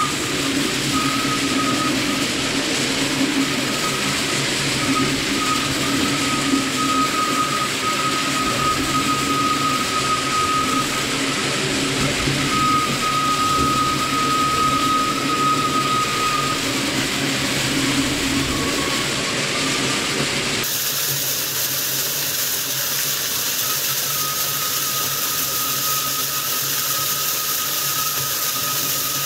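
Twin-shaft shredder running and shredding aluminium kitchen foil: a steady machine sound with a steady high tone over dense noise. About two-thirds of the way through it changes abruptly to a second, smaller shredder taking in foil from a roll.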